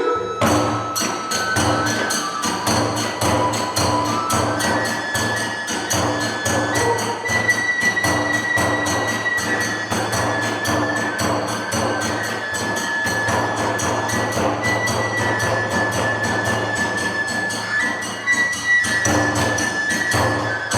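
Kagura hayashi: a high bamboo flute plays held notes over fast, steady drum strokes and clashing hand cymbals, about four to five strokes a second. The percussion comes in abruptly at the start.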